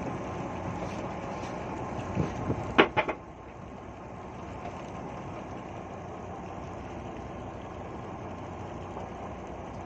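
A boat engine running steadily under a wash of wind and water noise. A few sharp knocks come about two to three seconds in, after which the sound settles a little quieter.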